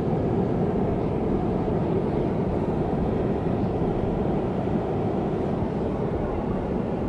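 Steady beach surf, a continuous low, even wash of sea noise.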